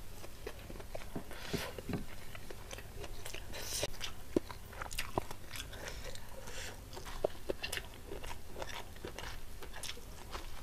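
Close-miked eating: a person chewing and crunching fried battered fritters with rice, with many small wet mouth clicks.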